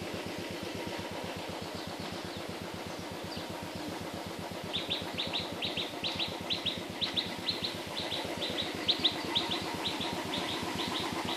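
A small engine running steadily with a rapid low chugging. From about five seconds in, a bird calls over it with quick repeated high chirps, several a second.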